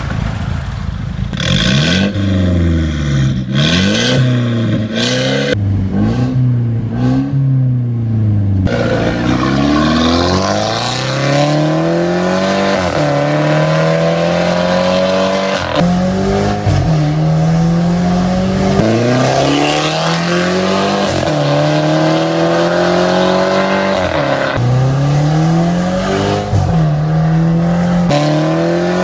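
Mercedes-Benz W205 C300's turbocharged four-cylinder engine through an aftermarket valved racing exhaust. For the first eight seconds or so it is blipped up and down in quick revs. After that it pulls through the gears, each climb in pitch broken off by a sudden drop at the upshift.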